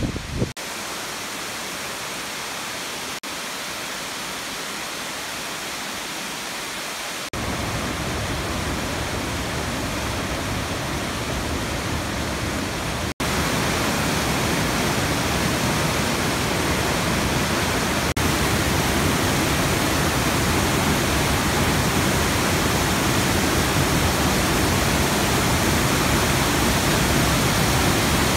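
Steady rushing of a waterfall and whitewater rapids pouring over rock. The rush steps louder at abrupt cuts about seven and thirteen seconds in.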